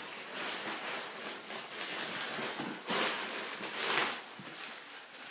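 Packaging rustling and crinkling as it is pulled open and handled, in irregular swells with the loudest about three and four seconds in.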